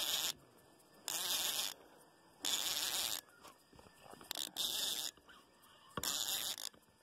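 Insects calling in repeated buzzing bursts, each well under a second long, about five of them with a second or so of fainter hiss between.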